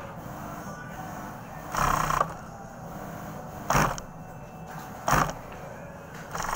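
Industrial sewing machine stitching in three short bursts, the first about half a second long and the other two briefer, over a steady background hum.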